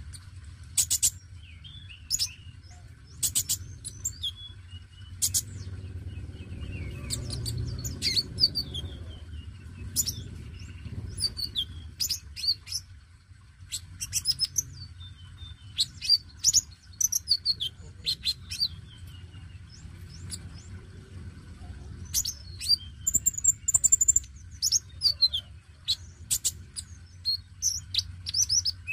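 Male Van Hasselt's sunbird (konin) singing in a cage: clusters of short, sharp, high chirps and ticks, repeated throughout. A steady low hum runs underneath.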